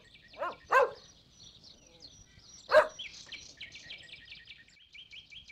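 Background birdsong of rapid, high chirping that grows steadier after a few seconds. Three short, louder animal calls come about half a second, nearly a second and almost three seconds in.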